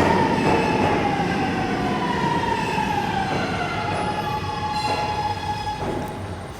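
Subway train's motor whine, a tone with overtones falling slowly in pitch as the train slows down, over the rumble of the train.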